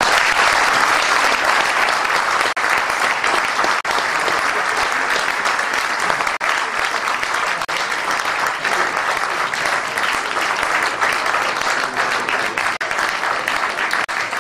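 Audience applauding: dense, steady clapping that eases a little near the end.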